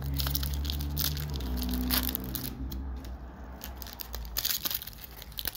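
Foil wrapper of a hockey trading-card pack being torn open and crinkled by hand: a run of short, sharp crackles, loudest about two seconds in, over a low steady hum that fades partway through.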